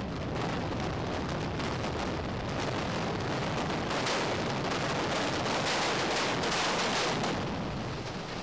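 Explosive charges detonating in sequence to fell a reinforced concrete stadium: many sharp blasts in quick succession, giving way near the end to a lower rumble as the concrete comes down.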